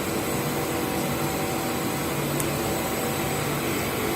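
Steady whir and hum of a running electric power-cable extrusion line, its motors and fans running together, with a thin high whine on top.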